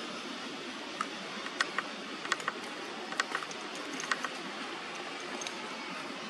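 Large green leaf crinkling and crackling as two monkeys tug at it: a string of short sharp clicks from about a second in to just past four seconds, over a steady hiss.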